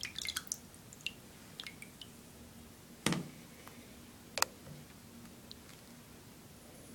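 A wet first-generation iPod touch, just lifted out of sink water, being handled on the edge of the sink: faint scattered wet clicks and taps, a soft knock about three seconds in and a sharp click about a second later.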